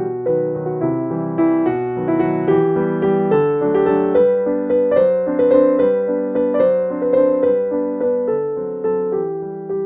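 Background piano music: a gentle melody of evenly paced notes.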